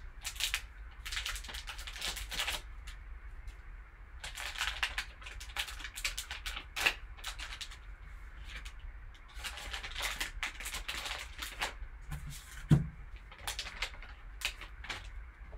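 Foil wrapper of a trading-card pack crinkling and tearing as it is opened and crumpled by hand, in irregular rustling bursts. A single sharp thump comes near the end.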